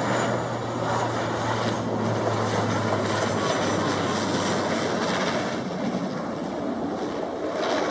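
Bombardier Dash 8-400 turboprop landing: a steady rushing drone of its engines and propellers, with a low hum in it that stops about three and a half seconds in.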